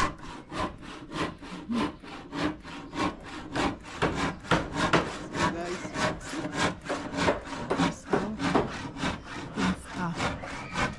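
Hand saw cutting with quick, even back-and-forth strokes, about three to four a second.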